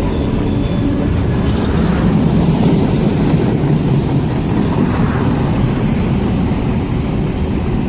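Train rolling past: a steady, loud noise of railcars and wheels on the rails, with faint wheel squeal near the start.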